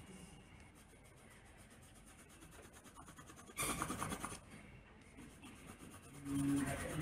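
Paper pages rubbed and slid by hand over a cloth-covered table, with one louder brief rustle a little past halfway through.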